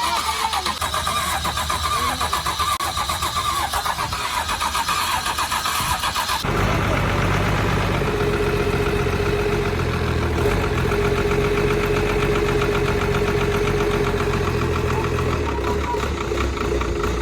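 Rebuilt six-cylinder diesel excavator engine running with an even firing rhythm. About six seconds in the sound changes abruptly to a louder, deeper running, with a steady whine for several seconds in the middle.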